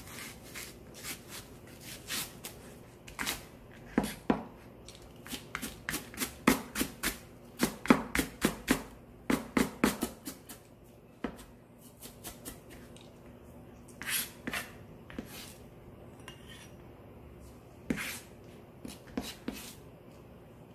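Chef's knife chopping green onion on a plastic cutting board: sharp knocks of the blade striking the board, in quick runs of several a second broken by short pauses.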